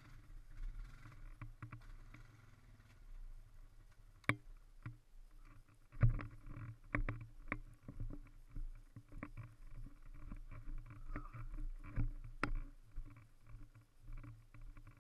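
Honda ATV engine running low and steady at crawling speed, with frequent sharp knocks and rattles as the machine bumps over the rough trail. One loud knock comes about four seconds in, and the knocks grow busier and louder from about six seconds in.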